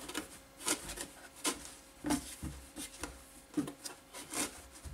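Dry wipe-like liners and a cardboard box rustling and scraping under the hands as the liners are pushed into the box, in short irregular strokes.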